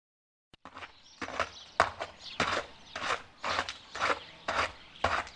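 A farm animal recording that begins after a moment of silence: a regular series of short, noisy sounds, about two a second and sometimes in pairs.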